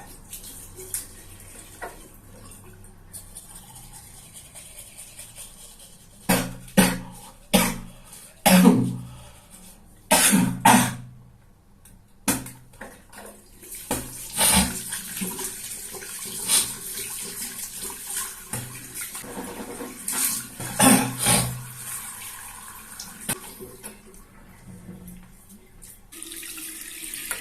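Teeth being brushed at a bathroom sink with a tap running, broken by several loud bursts of coughing and spitting from a sore, phlegmy throat.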